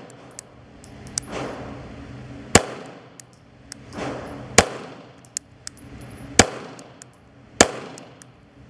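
Pistol fired one shot at a time in an indoor range, four loud reports about two seconds apart, each with a short echo. Fainter sharp ticks fall between the shots.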